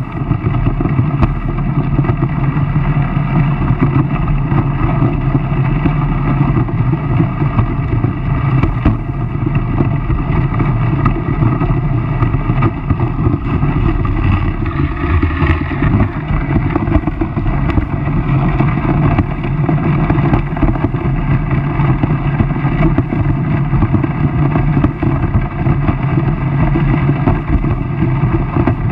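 Outboard motor of a RIB boat running steadily at speed through dense brash ice. A brief louder hiss comes about halfway through.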